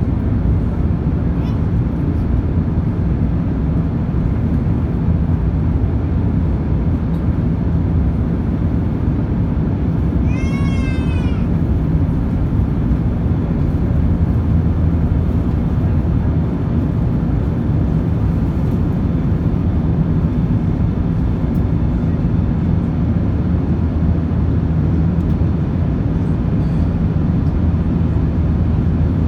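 Steady low cabin drone of an Airbus A380 climbing after takeoff: its Rolls-Royce Trent 900 engines and airflow heard from inside the cabin. About ten seconds in, a brief high-pitched wavering cry sounds once.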